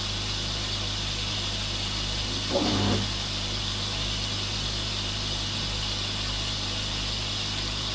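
Steady low machine hum with a constant pitch, and a short vocal sound lasting about half a second about two and a half seconds in.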